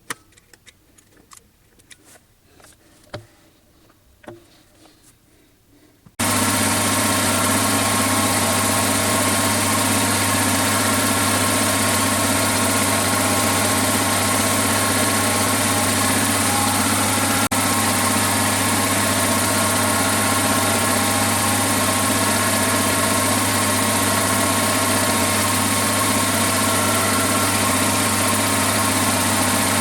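A few light clicks and handling knocks, then about six seconds in a workshop machine's electric motor comes in abruptly and runs steadily, with a low hum under a broad whirring noise.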